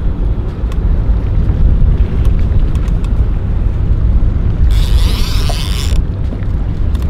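Wind buffeting the microphone over the low rumble of a boat's outboard motors at sea. About five seconds in, a high hiss lasts about a second and stops suddenly.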